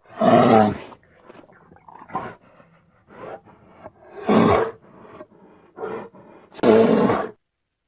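Grizzly bear roar sound effect: three loud roars, one near the start, one about four seconds in and one near the end, with shorter, quieter grunts between them.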